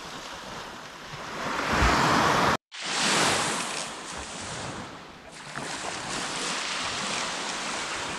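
Small waves washing onto a sandy beach, with wind on the microphone. The wash swells louder about two seconds in, then the sound cuts out for a split second.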